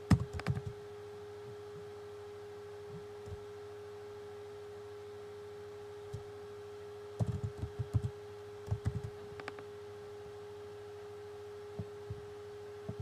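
Keystrokes on a computer keyboard, typed in short bursts: a quick run at the start, two busier runs in the middle and a few single taps near the end. A steady low hum runs underneath.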